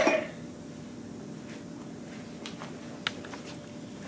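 Quiet machine-shop room tone with a faint steady low hum and a few light clicks and taps.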